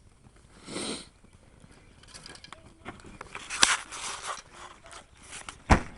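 Rustling and handling noises, with a sharp knock past the halfway mark and a louder one near the end.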